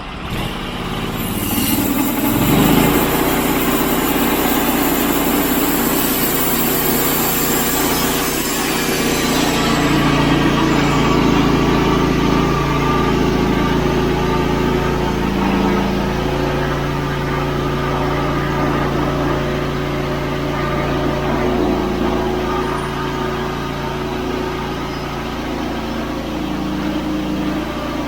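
An engine running steadily at a constant speed. A loud hiss lies over it for the first ten seconds or so, then stops.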